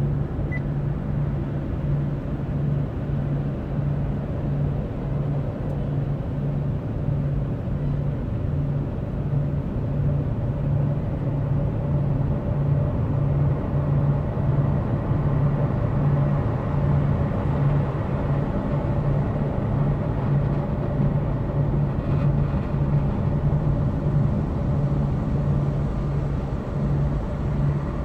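Steady low rumble inside a Nissan Qashqai's cabin as the car reverses slowly, with a regular low throb running through it.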